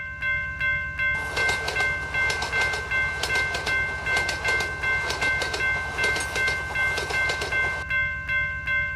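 Railroad crossing bell ringing steadily at about two strokes a second. From about a second in until near the end, a passing train adds rapid wheel clicks over the rail joints and a low rumble.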